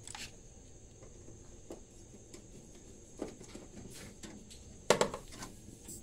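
Metal grille over a chest freezer's compressor compartment being unscrewed and pulled off: scattered light clicks and clinks of screwdriver and sheet metal, with one louder clank near the end.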